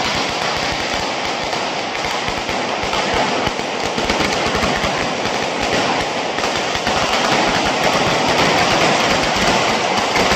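Elevated traca valenciana, a long string of firecrackers hung above the street, going off as a continuous rapid crackle of bangs.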